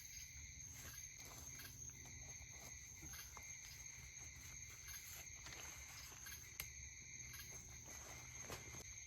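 Faint steady chorus of night insects, two high even tones running on without a break, with a few soft clicks of gear being handled.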